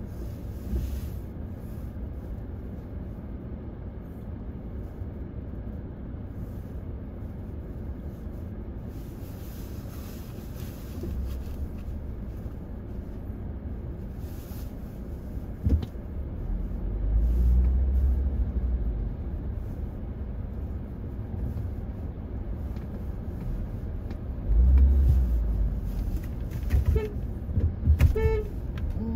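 Low rumble of a car's engine and road noise heard inside the cabin, waiting at a light and then pulling away, swelling louder twice as the car moves. Near the end a car horn sounds in a few short honks.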